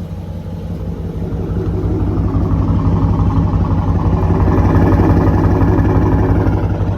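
Dodge Charger R/T's 5.7-litre Hemi V8 running through a catless exhaust, a steady low rumble that grows louder a second or two in and eases slightly near the end.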